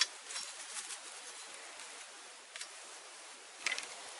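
Sharp snaps and cracks of thin bamboo canes being cut with a machete: one at the start, a quick cluster in the first second and a single snap later. Near the end comes another short cluster of snaps as dry bamboo sticks are handled over a small fire.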